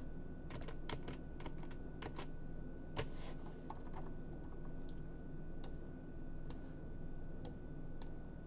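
Clicking of a computer keyboard and mouse: a quick run of keystrokes in the first couple of seconds, a sharper click about three seconds in, then single clicks about once a second, over a steady faint hum.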